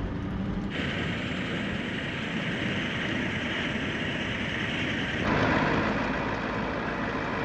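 Toyota Land Cruiser 4x4 driving, a steady engine and road noise. The noise changes abruptly twice, just under a second in and again about five seconds in.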